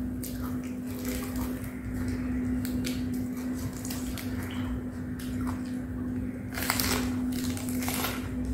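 Close-miked eating and food-handling sounds: wet squishing and crackling as leafy greens are handled and put in the mouth, loudest about seven seconds in. A steady low hum runs underneath.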